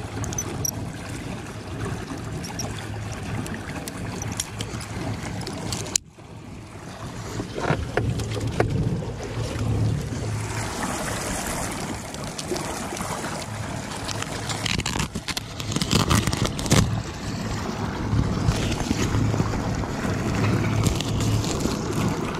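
Wind and water noise around a small aluminium jon boat, with a steady low hum throughout. Scattered clicks and knocks come from fishing tackle being handled, most around the middle of the stretch.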